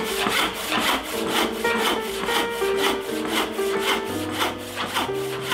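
Western hand saw cutting through a board in quick, even strokes, about three a second, with background music underneath.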